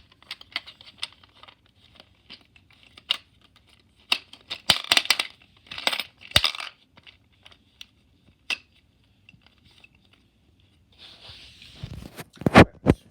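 Small sharp clicks, clinks and short rattles as coins are handled and tried in the coin slot of a Dubble Bubble gumball machine bank, with a few heavier knocks near the end.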